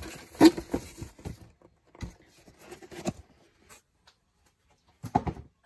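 Cardboard box being moved aside and bubble-wrapped packages handled on a wooden table: a scatter of knocks and rustles, the loudest about half a second in, with another cluster near the end.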